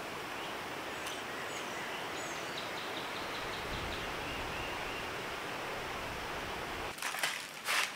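Steady outdoor ambience of a light breeze rustling, with a few faint, high bird chirps. About seven seconds in, the breeze noise drops away and a few sharp clicks and rustles of handling follow.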